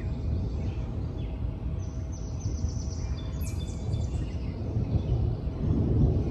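Steady low rumble of wind buffeting the microphone outdoors ahead of a thunderstorm. A bird chirps a quick series of high notes from about two to four seconds in.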